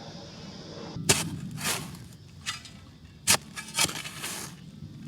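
Shovel digging into soil: a run of irregular sharp crunching and scraping strikes, after a steady machine hum cuts off about a second in.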